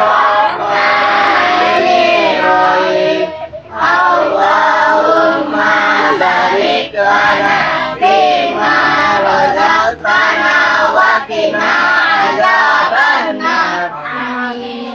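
Children's voices singing together in a sing-song melody, in phrases with short breaks between them, fading out near the end.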